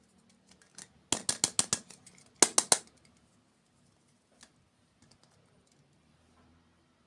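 Two quick runs of sharp, crisp clicks, about seven in under a second and then four more, with faint small clicks scattered around them.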